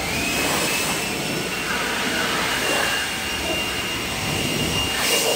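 Electric air blower with a hose starting up: its motor spins up with a rising whine, then runs at a steady high whine over rushing air while blowing water out of an engine bay.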